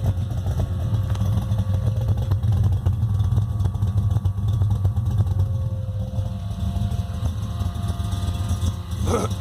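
Engine of a modified 1979 Holden VB Commodore idling steadily with a lumpy, uneven beat.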